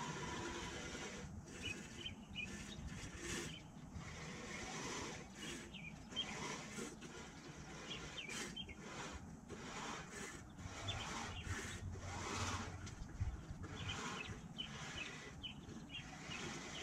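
Outdoor ambience: small birds chirping now and then over a steady, faint rushing background, with a low rumble from a passing vehicle in the second half.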